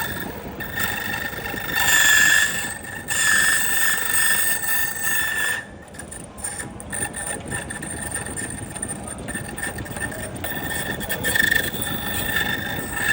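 Key-cutting machine running, its cutter grinding the teeth into a key blank with a steady high whine. It is loudest from about two to five and a half seconds in, softer for a while, then louder again near the end.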